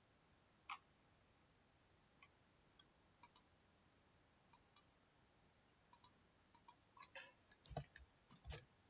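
Faint clicks of a computer mouse and keyboard. Several come in quick pairs, like double-clicks, then a short run of key taps follows with two heavier knocks near the end.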